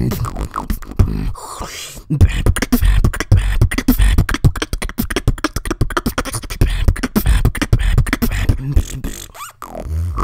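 Human beatboxing: a fast run of sharp mouth clicks and snares over deep bass kicks, with a short break near the end.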